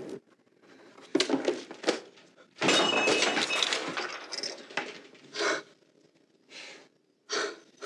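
A few sharp knocks or cracks, then a longer, louder crash-like noise lasting about two seconds, followed by three short breathy bursts near the end.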